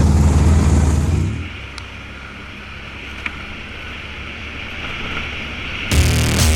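Vehicle engine running loudly, which drops away about a second in to a quieter, steady rushing noise. Music comes in near the end.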